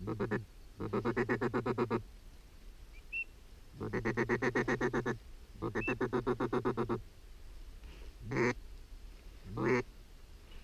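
Ducks quacking in rapid chattering runs of about ten quacks a second, three runs of a second or so each, then two single short quacks near the end. A couple of faint high whistles come in between.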